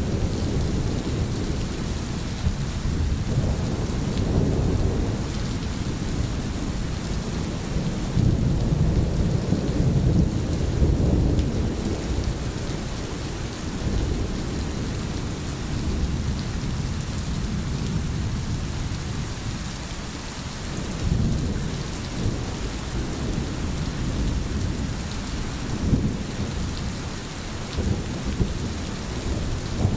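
Steady rain with a continuous low rumble underneath that swells and fades every few seconds.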